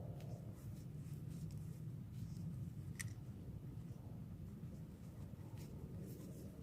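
Faint clicks and light scraping of small hand tools at work on a motorcycle's ignition condenser, with one sharper click about three seconds in, over a low steady hum.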